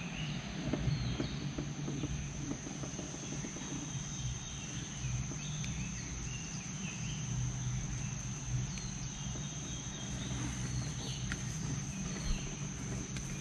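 Rainforest ambience: a steady high-pitched drone over a low rumble, with scattered short bird chirps. A small knock sounds near the end.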